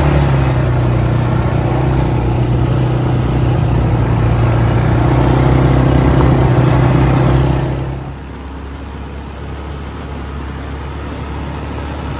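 A motor vehicle's engine running steadily with a loud low drone and a noisy haze over it. About eight seconds in the sound drops abruptly to a quieter, duller rumble.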